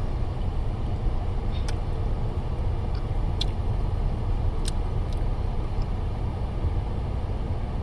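Steady low rumble with a handful of short sharp clicks, about five of them spread through the first two-thirds, as frozen candy-coated grapes are eaten.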